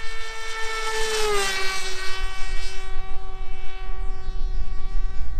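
Motor and propeller of a long-range FPV fixed-wing RC plane flying past low, a steady high whine whose pitch drops about a second in as it passes, then holds at the lower note.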